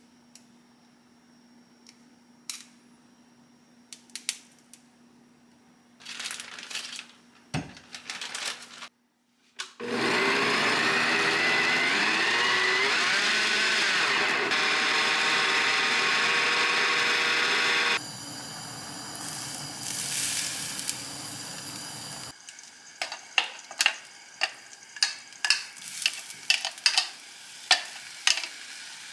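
An electric blender runs loud and steady for about eight seconds, its pitch wavering, then drops to a quieter whirr. Near the end comes a run of sharp taps, a few a second.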